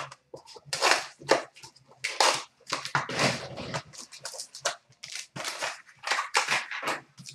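The packaging of a trading-card box being torn open and handled, making a quick run of crinkling, crackling rustles.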